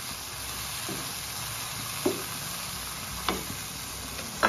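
Chicken pieces with onion and spices sizzling in a wok as they are stirred with a wooden spatula. The spatula knocks sharply against the pan four times, about once a second, and the last knock near the end is the loudest.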